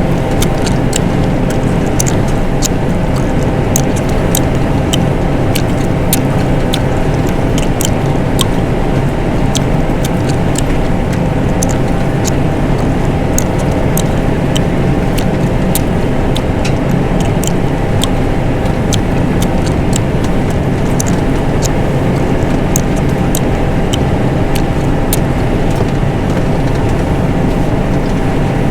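John Deere 9500 combine running steadily while harvesting: a constant engine and machinery drone with frequent sharp clicks and ticks over it.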